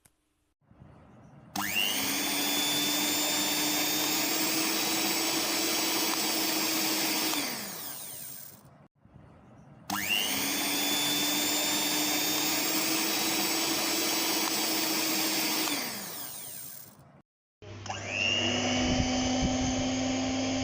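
Pensonic PM-214 electric mixer motor switched on and running: it spins up with a rising whine, runs steady for about six seconds and winds down. It does this twice, then starts once more near the end.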